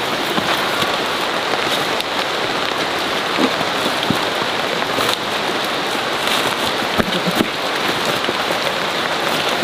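Steady rain falling on foliage, with a few soft knocks about three and a half and seven seconds in.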